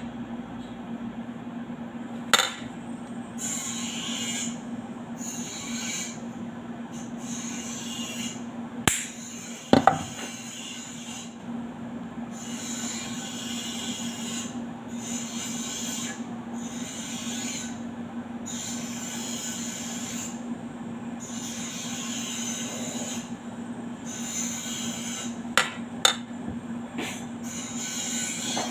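Repeated rubbing or scraping strokes of a hand tool on a workpiece, about a second each with short gaps, over a steady low hum, broken by a few sharp knocks.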